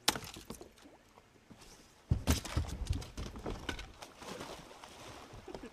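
A hooked fish thrashing and splashing at the surface beside the boat. There is a sharp knock at the start, then a sudden burst of irregular splashing and knocking from about two seconds in.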